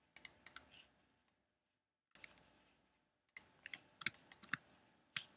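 Faint, sharp clicks of a computer mouse and keyboard in small groups: a few quick clicks at the start, one a couple of seconds in, a cluster of about half a dozen from about three and a half to four and a half seconds in, and one more near the end.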